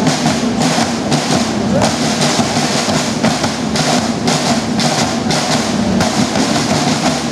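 Marching snare drums played by a line of drummers in unison: a loud, fast, steady rhythmic pattern of sharp strokes and rolls.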